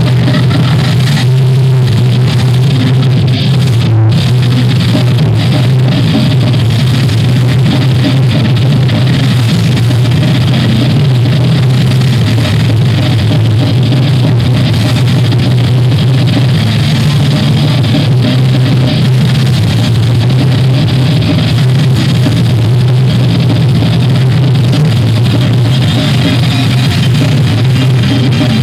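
Live thrash metal band playing loudly: distorted electric guitar, bass guitar and drum kit.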